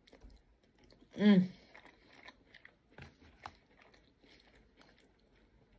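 A person chewing a mouthful of chicken satay close to the microphone: soft wet mouth clicks and small smacking noises. A short hummed "mmm" comes about a second in.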